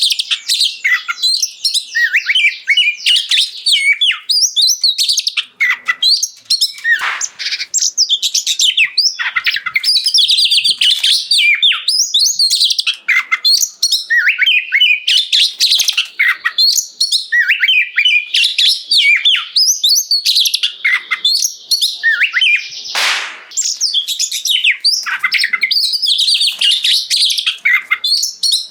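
Oriental magpie-robin in full, continuous song: rapid, varied whistles and chirps with only brief pauses. A short rasping note cuts in about 23 seconds in.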